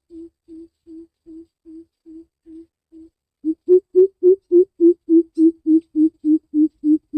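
Greater coucal (crow pheasant) giving its deep, booming hoot series, about three hoots a second. A quieter run fades out, then a louder run begins about halfway through and drops slightly in pitch.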